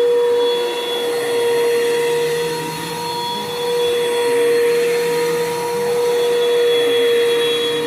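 Bissell PowerForce Bagless upright vacuum cleaner running with a steady motor whine and airflow hiss. Its loudness swells and dips slightly a few times.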